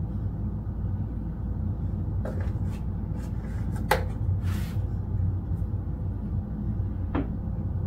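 Steady low hum with three light knocks and clicks of objects handled on a kitchen counter, the sharpest about four seconds in.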